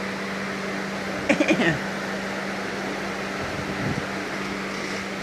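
A steady mechanical hum runs throughout. About a second and a half in, a young child gives a short burst of cough-like sounds, copying a cough.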